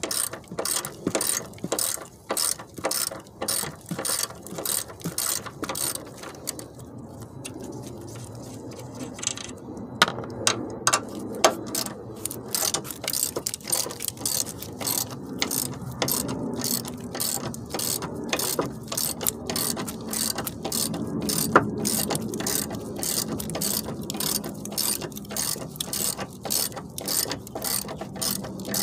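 Hand ratchet wrench clicking in quick back-and-forth strokes, about two a second, as the 13 mm nuts at the top of the strut are run off. The clicking eases off for a couple of seconds about seven seconds in, and a few sharp metal clinks sound along the way.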